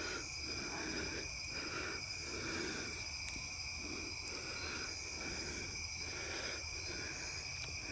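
Night insect chorus: a steady high-pitched trilling of insects that holds on without a break.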